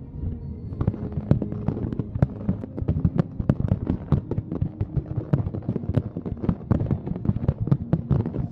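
Fireworks crackling and popping in a dense, irregular string of sharp reports, several a second, starting about a second in.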